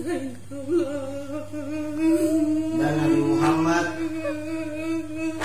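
A voice holding one long, steady, chant-like note, with a higher, wavering voice over it; the note cuts off sharply at the end.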